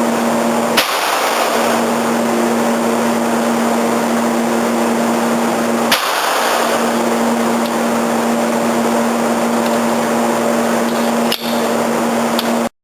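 .22 rimfire pistol shots: two sharp cracks about five seconds apart, each with a short ringing tail, over a loud, steady hiss and hum.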